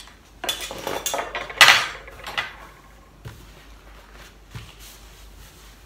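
Knife and fork clattering against dishes on a table, a quick run of clinks and knocks loudest about a second and a half in, then a few faint taps.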